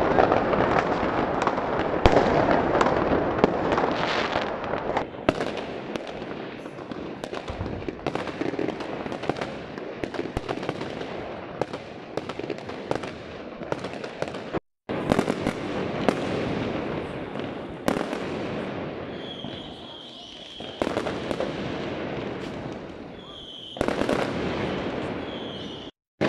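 Fireworks and firecrackers going off in the streets: a dense run of bangs, pops and crackles, close and distant, louder in the first few seconds and thinning later.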